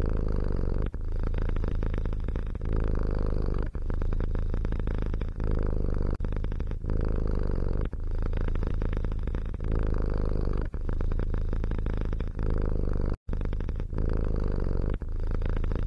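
A cat purring: a continuous low rumble in stretches of one to three seconds, each broken by a short dip as the cat breathes. The sound cuts out for an instant about 13 seconds in.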